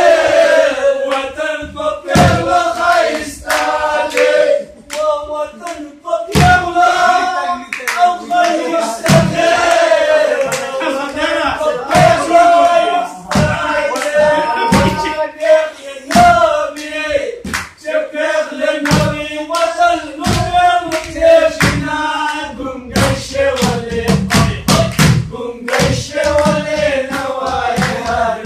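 Men singing a Pashto song together, one voice carrying the tune, with hand claps and thumps keeping time; the claps come faster near the end.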